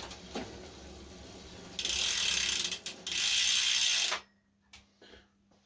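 Mountain bike rear freehub ratcheting in a fast buzz as the wheel spins freely in the stand, in two loud bursts that stop about four seconds in.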